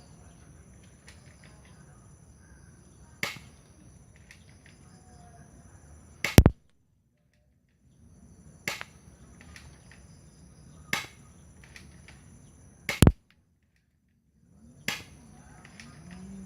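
Airsoft Beretta-type pistol fired single shots in a 6 mm BB accuracy test: two loud sharp cracks about six and thirteen seconds in, with quieter clicks between them. The sound drops out to silence right after each loud crack.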